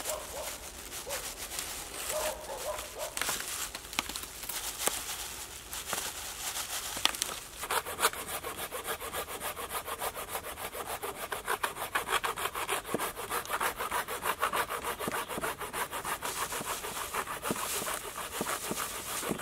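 Hand saw cutting through a log in a steady rhythm of back-and-forth strokes.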